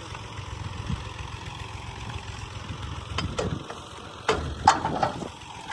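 Combine harvester's diesel engine running at a steady idle-like rumble, with a few sharp knocks in the second half.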